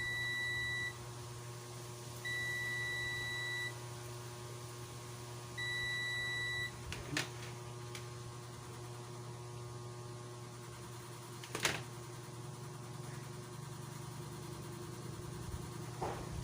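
Three long, steady, high-pitched electronic beeps in the first seven seconds, over a steady low hum, with a few sharp clicks later on.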